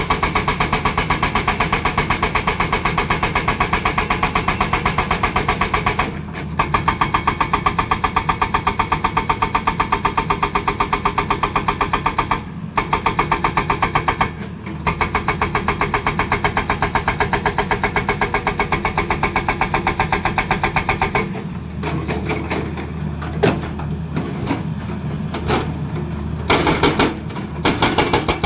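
Hydraulic rock breaker on a Tata Hitachi excavator hammering rock with rapid, steady blows, over the excavator's diesel engine running. The hammering stops briefly three times, and about 21 seconds in it turns uneven and choppy.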